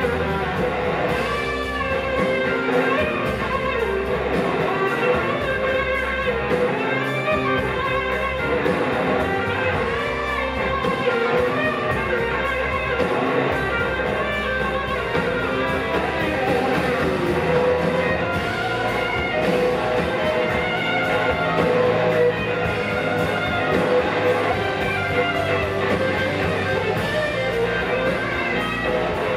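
Live blues-rock band playing an instrumental stretch led by electric guitar, with the full band behind it.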